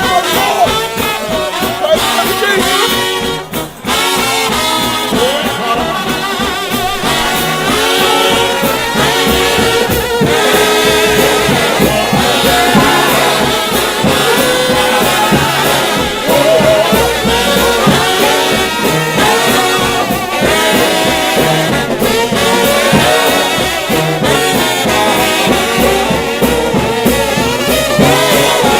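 A trombone shout band, a brass choir led by many trombones, playing loud, dense music with wavering, overlapping horn lines.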